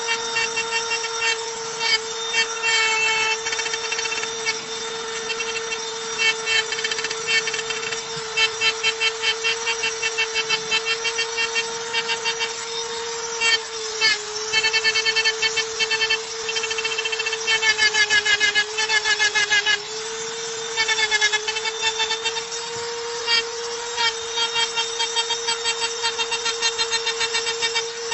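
Small electric rotary tool (mini drill) engraving a stone slab. The motor gives a steady high whine, and the bit makes rapid scratchy ticking in short bursts as it cuts. The whine sags briefly in pitch under harder pressure around the middle.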